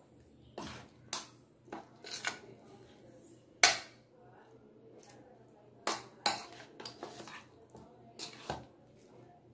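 Spoon clinking and scraping against a ceramic bowl while stirring paneer, capsicum and onion in a thick yogurt marinade: a string of irregular clinks, the loudest about three and a half seconds in.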